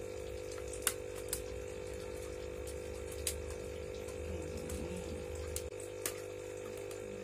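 A few sharp plastic clicks and taps as hamster-cage tube pieces are handled and snapped together, over a steady electrical hum.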